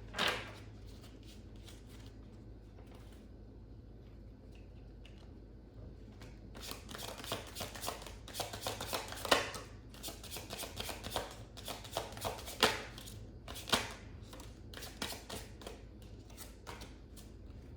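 A deck of oracle cards being shuffled by hand: a dense run of quick rustles and taps that starts about six seconds in, after a quiet stretch, with a few sharper taps among them.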